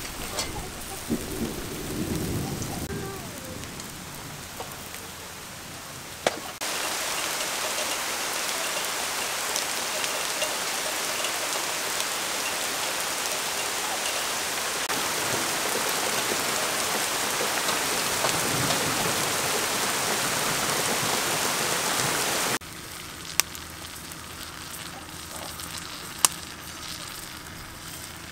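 Heavy rain falling steadily. It comes in suddenly about six and a half seconds in and cuts off just as suddenly about six seconds before the end. Either side of it is a quieter background with a few sharp clicks.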